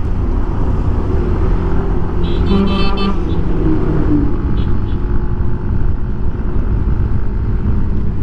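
Motorcycle riding at road speed: steady engine and wind rumble, heavy in the low end, picked up by a foam-wrapped helmet mic. A vehicle horn sounds briefly about two and a half seconds in.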